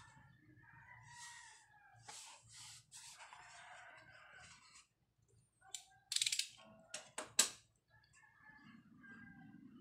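Hands handling a cardboard phone box, with a few sharp scraping and rubbing strokes from about six to seven and a half seconds in, the loudest part. A rooster crows faintly in the background near the start and again near the end.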